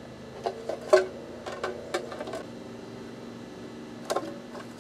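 Light clicks and taps of a tape measure and marker being handled against a downspout section while it is measured and marked, over a steady low hum.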